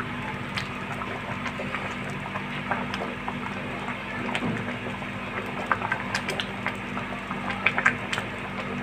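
A pot of thick, cornflour-thickened chickpea soup simmering, with scattered small bubbling pops and the metal ladle clinking now and then against the pot, over a steady low hum.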